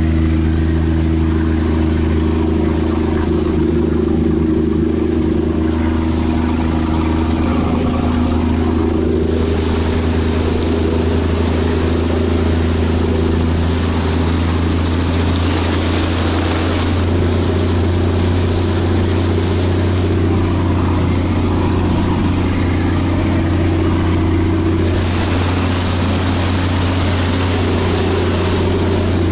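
Toyota Land Cruiser 80 engine running steadily as the truck drives off-road. A rushing hiss comes and goes over it from about nine seconds in.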